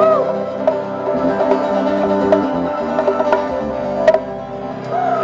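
Live band playing an instrumental passage: acoustic guitar over electric bass and drum kit, with no singing.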